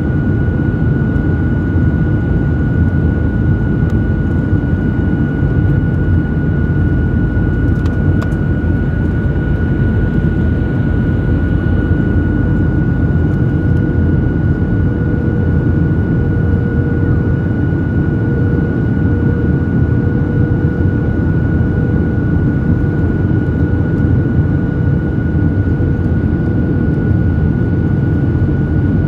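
Jet airliner cabin noise while descending: the steady rush of engines and airflow heard from inside the cabin, with a constant high whine over it.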